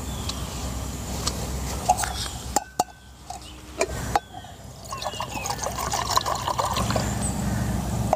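A few sharp knocks and clicks of camping gear being handled, then water poured from a plastic bottle into a metal camp cup and a metal cooking pot, trickling and splashing.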